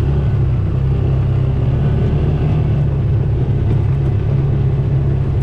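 Off-road vehicle engine running steadily while driving, a constant low drone with no revving up or down.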